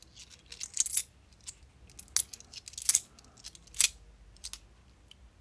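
Bimetallic £2 coins clinking against each other as they are slid one by one off a stack held in the hand: an irregular scatter of sharp metallic clicks, some in quick little clusters.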